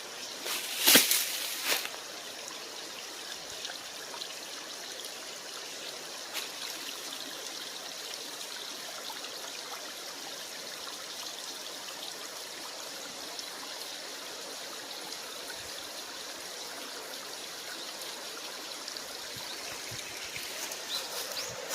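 Waterfall's water falling and splashing in a steady, even rush. A few sharp knocks come in the first two seconds.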